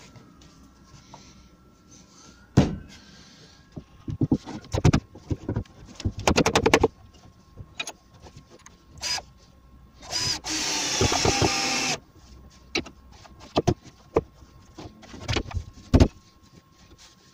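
Wooden timbers knocking and clattering against each other and on a plywood workbench as the parts of a curved-braced bracket are handled, with several sharp knocks and a quick rattling run about six seconds in. A loud, steady rushing noise lasts nearly two seconds about ten seconds in.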